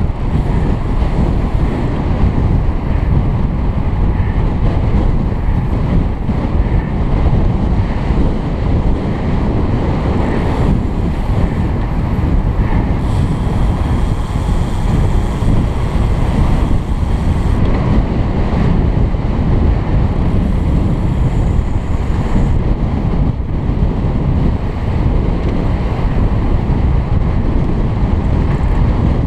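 Steady, loud wind rumble buffeting a helmet-mounted camera's microphone as a road bike rides at speed in a group.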